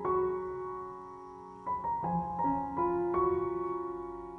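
Soft, slow background piano music: a chord at the start left to ring and fade, then single notes and chords struck a few times later on, each ringing on.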